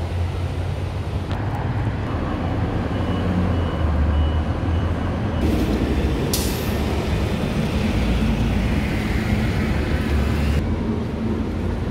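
Street traffic with a city bus's engine rumbling steadily. About halfway through, a loud hiss of the bus's air brakes sets in with a sharp burst and lasts several seconds.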